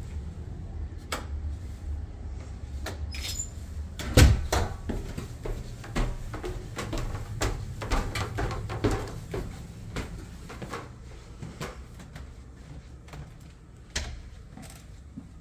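Footsteps and knocks as a person climbs wooden stairs, with the loudest knock about four seconds in and a last one near the end.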